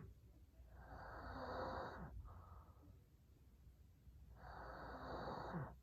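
A man snoring in his sleep: two snores, each a little over a second long, about three and a half seconds apart.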